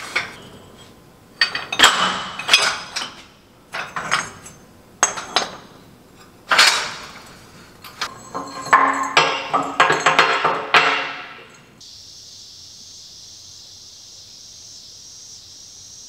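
Rusty steel pipes and scrap metal stock clanking and clinking against each other as they are sorted and pulled from a pile on a metal shelf, in irregular bursts. About twelve seconds in, the clanking stops and a steady high hiss takes over.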